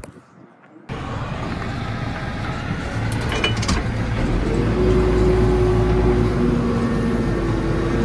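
JCB 4CX backhoe loader's diesel engine running, heard from inside the cab, coming in about a second in and getting louder from about four seconds in, with steady whining tones over it as the machine works. A few light clinks around three seconds in.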